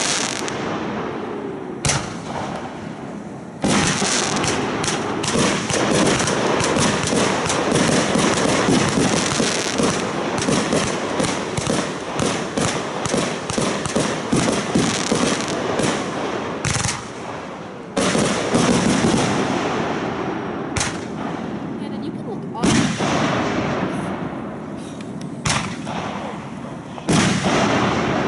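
Aerial firework shells bursting overhead in quick succession: sharp bangs with fast strings of pops between them. The pops come most densely through the middle, and a few separate bangs follow near the end.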